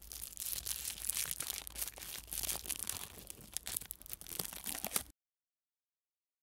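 Crackling, crunching sound effect of many small rapid clicks, for clay tearing and re-forming. It cuts off suddenly about five seconds in.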